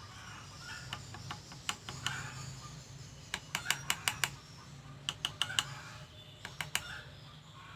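Light metal taps on the back (blunt) edge of an electric planer blade to lower it into line with the planer's rear shoe, in several quick clusters of small clicks.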